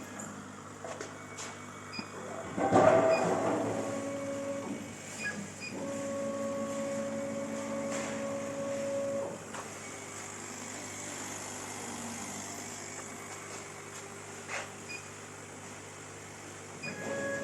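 Stepper motors of a KAMACH 1610 CO2 laser cutting machine whining as the laser head moves, in runs of a few seconds at changing pitches, over a steady low hum. There is a brief clatter about three seconds in.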